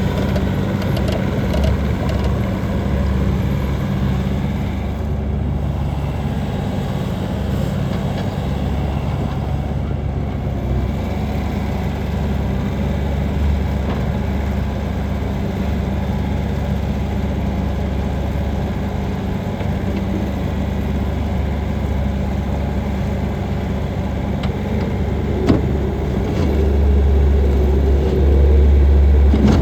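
2018 Bobcat T590 loader's diesel engine idling steadily, then running louder for the last few seconds. A single sharp click is heard shortly before it gets louder.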